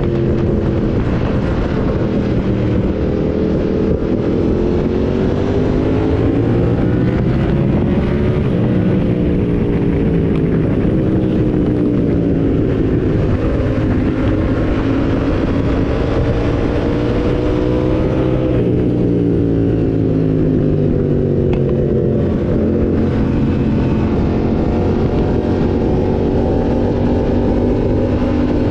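A motorcycle engine running under way, its pitch climbing and falling as the rider opens and closes the throttle. About two-thirds of the way through, the pitch drops sharply, like a gear change.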